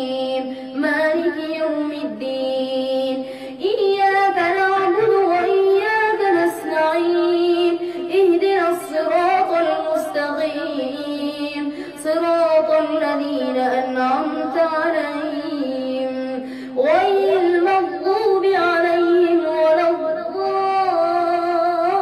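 A boy's voice reciting the Quran aloud in a melodic chant, phrases of long held notes with sliding pitch, separated by short breaths.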